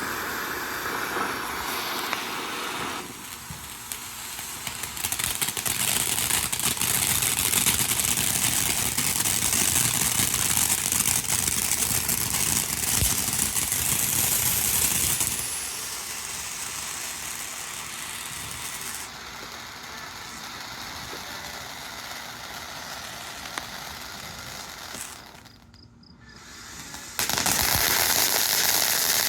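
Ground firework fountain spraying: a continuous hiss with crackle that steps up and down in strength several times, drops away briefly near the end, then comes back loud.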